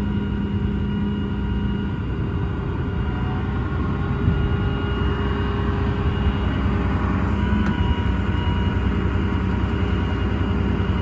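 Hydraulic service-truck crane being operated: a steady mechanical rumble with a held whine from the hydraulic system as the crane moves. The pitch of the whine shifts about two seconds in.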